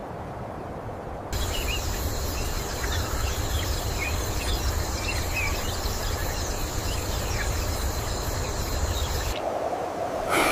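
Savanna nature ambience: steady insect buzzing with scattered short bird chirps over a low wind rumble. It starts abruptly about a second in and cuts off abruptly near the end. A brief sharp sound follows at the very close.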